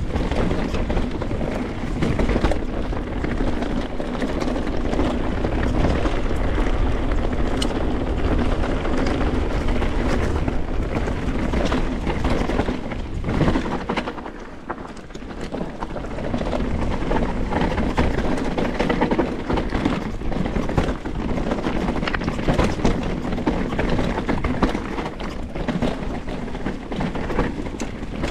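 Canyon Strive enduro mountain bike running down a rough trail: tyres on dirt and rock, with constant clattering and rattling from the bike. It eases off for a moment about halfway.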